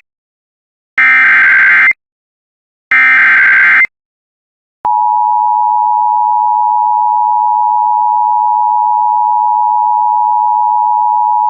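Emergency Alert System SAME header data bursts: two harsh one-second digital screeches about a second apart, the end of the three-times-repeated alert header. About five seconds in, the steady two-tone EAS attention signal begins and holds.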